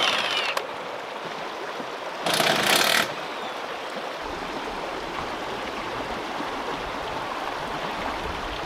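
Cordless impact wrench hammering on a lug nut of a big off-road wheel, loosening it so the punctured tire can come off: a burst that stops just after the start and another short burst about two seconds in. Between and after them a creek rushes steadily.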